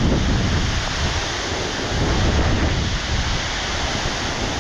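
Waterfall rushing steadily, with wind buffeting the microphone as a fluctuating low rumble.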